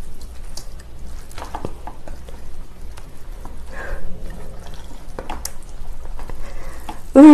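Wooden chopsticks mixing spicy cold buckwheat noodles in thick chili sauce in a stainless steel bowl: soft wet squelching with a few sharp taps. Near the end comes a short, loud vocal sound.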